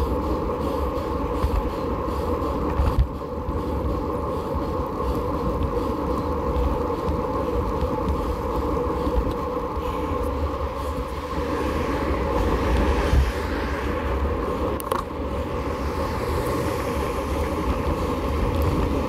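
Steady low rumble of riding noise picked up by a camera mounted low on a bicycle: tyres rolling on asphalt, with wind and vibration on the microphone.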